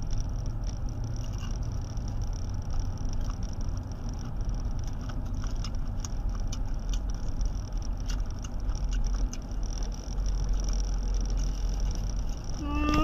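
Low, steady road rumble inside a moving car, with scattered small clicks and crackles as food is eaten from a plastic bag.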